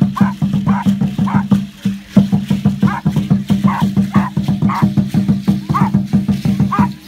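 Aztec dance drum beating a fast, even rhythm, with a brief break about two seconds in. Over it a small dog gives repeated short, high, excited whines.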